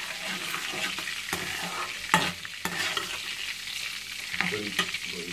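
Spices sizzling in hot oil in a stainless steel karahi, with a steady hiss. A metal spoon stirs and scrapes against the pan, giving sharp clicks now and then, the loudest a little past two seconds in.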